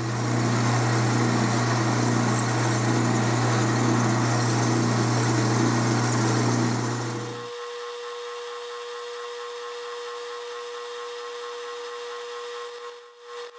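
12-inch Atlas metal lathe running a roughing cut on a steel rod: a steady motor hum with the hiss of the tool cutting. About seven and a half seconds in it cuts off abruptly to a quieter steady running sound with a thin whine.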